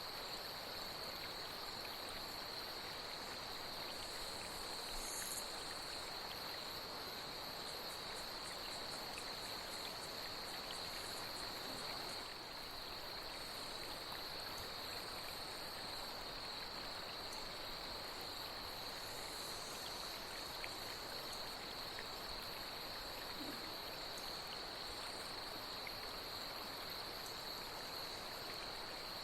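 Night insects droning in a steady high-pitched chorus over a constant wash of flowing water, with a few faint higher chirps.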